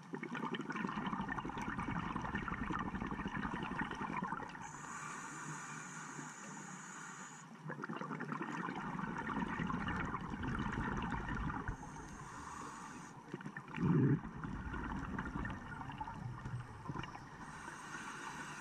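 Scuba regulator breathing heard underwater: three long bubbling exhalations, each lasting several seconds, alternate with shorter, quieter hissing inhalations. About fourteen seconds in comes a brief, loud low thump.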